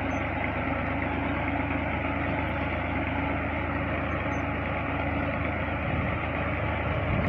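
Farm tractor's diesel engine running steadily while it pulls a seed drill across the field.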